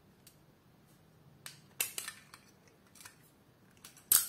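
Small metal clicks and light scrapes of a Walther TPH pistol's slide being worked by hand onto the barrel and frame during reassembly. Several faint clicks come through the middle, and a sharper, louder click comes near the end.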